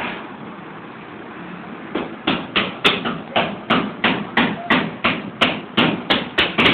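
A quick, even series of sharp knocks, about three a second, starting about two seconds in and keeping on without a break.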